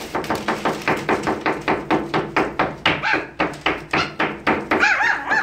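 Young puppies whining, with a few short rising-and-falling squeaky cries, the clearest near the end. Under them runs a steady rapid knocking, about four knocks a second.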